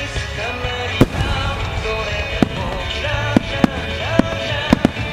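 Aerial firework shells bursting with sharp bangs, seven in all, the first about a second in being the loudest, the rest coming faster towards the end. Pop music with singing plays on loudspeakers under the bangs.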